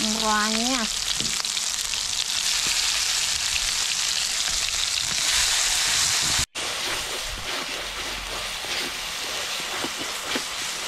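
Ground yellow spice paste sizzling as it is stir-fried in a hot wok, a spatula stirring through it. The sizzle briefly cuts out about six and a half seconds in, then goes on a little quieter.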